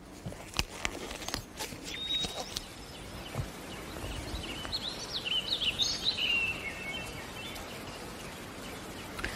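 A few sharp clicks in the first couple of seconds, then a bird chirping a quick run of rising and falling notes in the middle, over steady background noise.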